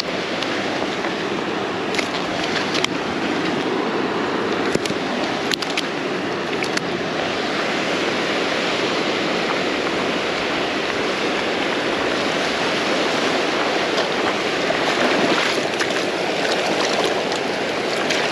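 Ocean surf washing onto a beach: a steady rush of breaking waves, with a few sharp clicks in the first several seconds.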